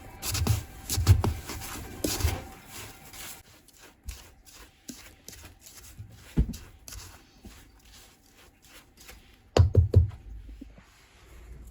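Scattered knocks and low thumps of handling in a small room, with a loud cluster of thumps near the end.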